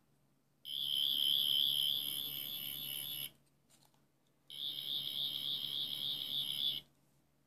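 Tenth Doctor sonic screwdriver prop sounding its electronic warbling buzz from its built-in speaker, twice, each time for about two and a half seconds, with a faint click in the pause between.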